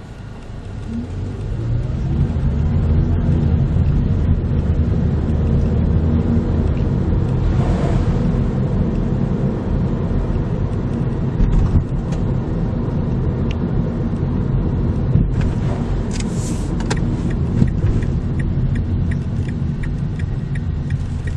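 Car driving, a steady engine and road rumble that builds over the first couple of seconds as it picks up speed. A few sharp knocks in the second half, and a light ticking of about two a second near the end.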